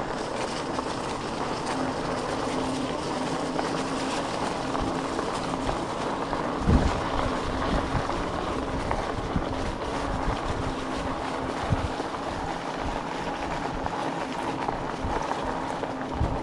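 E-bike riding along a dirt trail covered in fallen leaves: steady rolling noise from the tyres with a steady low hum. There are short thuds over bumps about seven seconds in and near the end.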